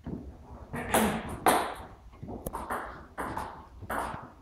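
Table tennis rally: the ball is struck by the bats and bounces on the table in a quick, irregular series of sharp clicks.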